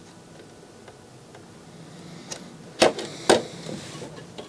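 Two sharp clacks about half a second apart, a little under three seconds in, with a few faint ticks before them. They come from desoldering work on the STK power-amplifier module's pins on the receiver's circuit board.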